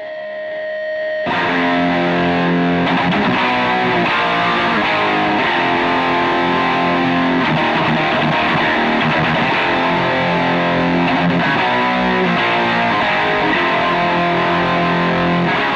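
Intro music: distorted electric guitar rock playing steadily, fading out near the end.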